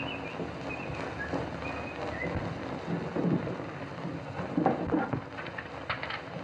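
Steady hiss and crackle of an old 1930s optical film soundtrack. It has a few short high notes in the first two seconds, then a run of knocks and rattles from about three seconds in, loudest a little before five seconds.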